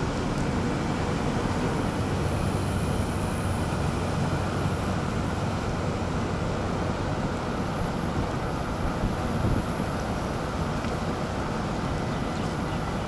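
Steady rumble of a moving vehicle, road and engine noise with a low hum.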